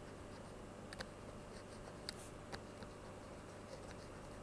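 Faint taps and scratches of a stylus writing on a tablet, with a few sharp clicks about a second apart, over a steady low hum.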